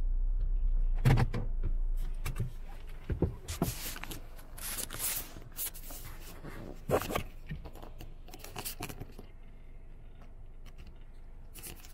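A parked car's engine hum stops about two seconds in. It is followed by sharp clicks, a jangle and bursts of rustling and scraping handling noise inside the car.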